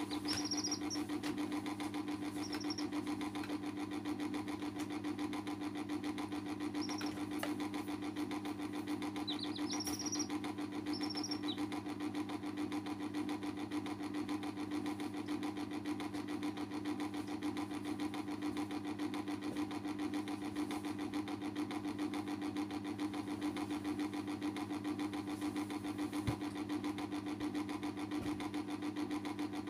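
A steady machine hum with a fast, even pulse runs throughout. A few short, high chick peeps come in the first twelve seconds or so.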